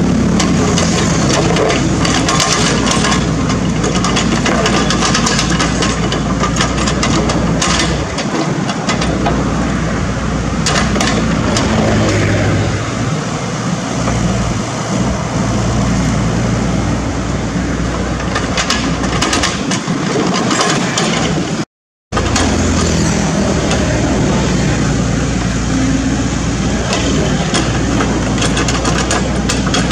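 Sany SY75C mini excavator's diesel engine running steadily under working load, with the bucket scraping and knocking through wet gravel and mud. The sound cuts out for a split moment about two-thirds of the way through.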